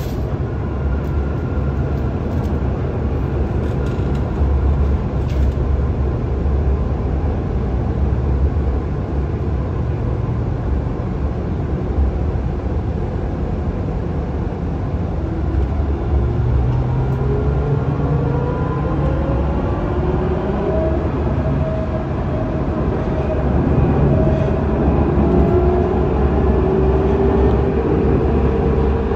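Interior running noise of an Alstom Citadis tram in motion: a steady low rumble from the wheels and running gear. Over the second half a whine rises in pitch.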